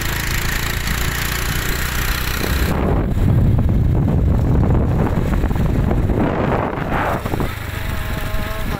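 Riding on a small motorcycle: wind rushing over the microphone with the engine running underneath. About three seconds in, the wind turns to a heavier low buffeting for several seconds, then eases.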